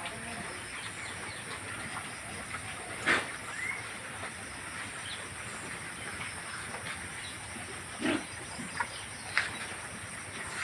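Pigs in a pen: scattered short grunts and a brief rising squeal over a steady hiss, with a sharp loud knock about three seconds in.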